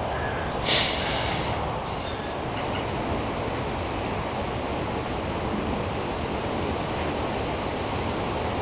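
Steady wind rushing across the microphone outdoors, with one brief rasping sound about a second in.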